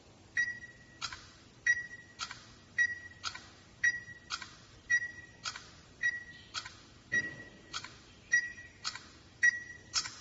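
Orbita P8023 smart door lock keypad beeping as a password is typed: a short high beep with each key press, about one press a second, nine or so in all, each with a light click.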